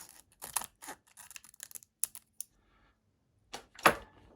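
Scissors cutting open a foil booster-pack wrapper: a run of short, sharp snips and rustles, then the loudest snip near the end.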